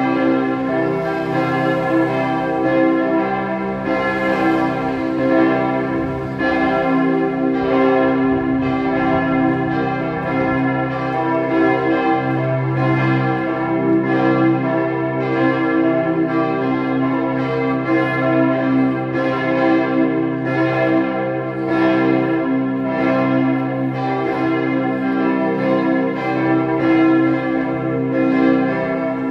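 Several church bells swinging and ringing together in a continuous peal, their strokes overlapping into a steady, dense ringing.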